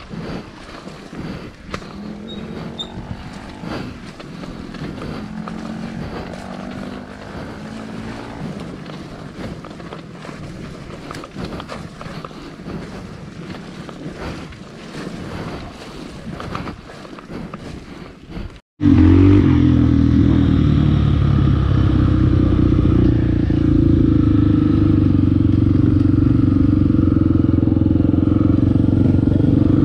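Dirt bike engine running while riding, its pitch rising and falling with the throttle, with wind noise on the microphone. After a break about two-thirds of the way through, a louder, steady engine drone takes over.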